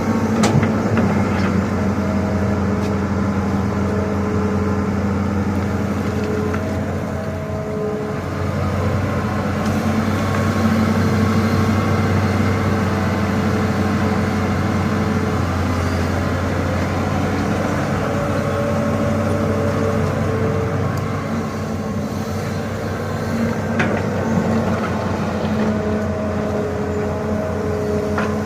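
Excavator's diesel engine running steadily, with higher hydraulic tones coming and going as the machine works, and a few sharp knocks near the start and about three quarters of the way through.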